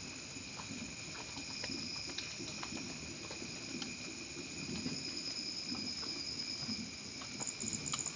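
Rain falling, with scattered drops ticking and a low rumbling wash under a steady high-pitched drone. A run of quick, very high chirps sets in near the end.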